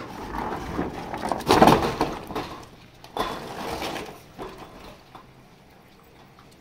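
Corrugated metal roof sheet being pushed and slid over the metal roof, scraping and rattling in two spells, the louder about a second and a half in.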